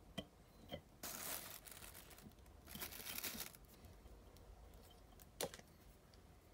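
Hands handling thread and hackle at a fly-tying vise while finishing a parachute dry fly: a few small clicks and two short bursts of soft rustling.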